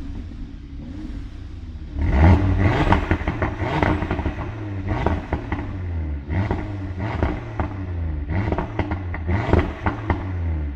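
Audi turbocharged engine with an RS sport exhaust, idling and then blipped several times from about two seconds in. Each rev rise is followed by a rapid string of crackles and pops from the exhaust as the revs fall off on the overrun.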